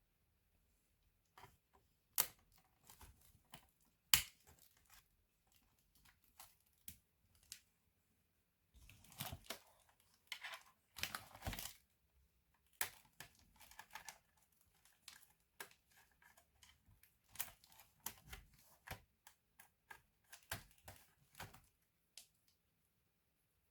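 Scattered small clicks, taps and crinkling of hands handling parts and packaging while working on a Lenovo B570e laptop, with a thicker stretch of rustling about nine to twelve seconds in.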